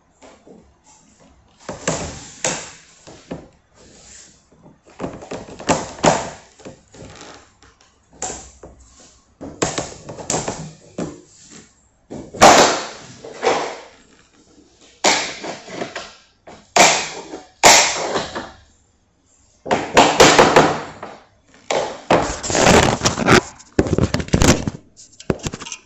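Flooring work in a small room: irregular bursts of knocks and thuds, each lasting about a second, separated by short pauses.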